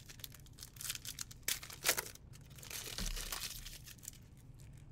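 Trading cards being handled and sorted by hand: irregular rustling and snapping of card stock and wrappers, loudest about two seconds in and dying away near the end.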